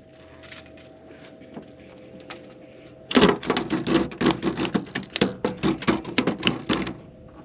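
A rapid, irregular run of knocks and rattles lasting about four seconds, starting about three seconds in, over a faint steady hum.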